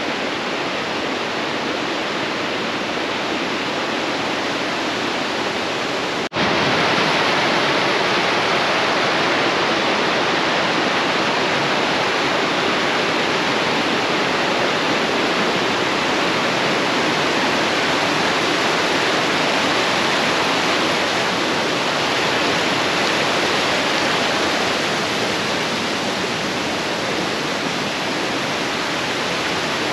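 Rushing mountain stream: a steady hiss of fast-flowing water, cut off for an instant about six seconds in and a little louder after.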